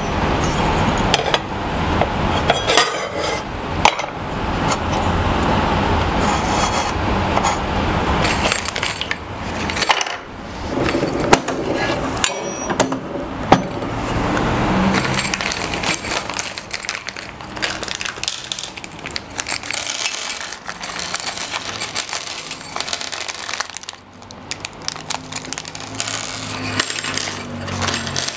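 Small metal hardware and Incra router fence parts clinking and clattering as they are handled, slid and fitted together on the router table top.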